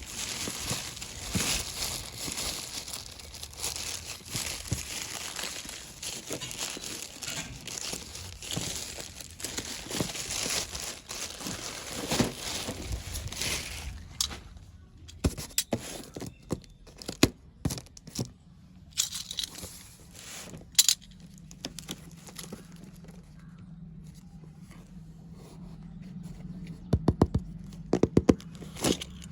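Packaging of a pack of slate pencils crinkling and tearing open for about fourteen seconds, then scattered sharp clicks and taps as it is handled, with a quick run of clicks near the end.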